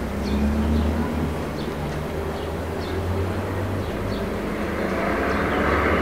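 Summer small-town ambience: a low, steady engine rumble of passing traffic, swelling louder near the end as a vehicle draws close, with small birds chirping over it.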